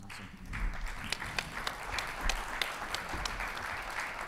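Audience applauding: many hands clapping together in a dense, steady patter, with a few sharper single claps standing out.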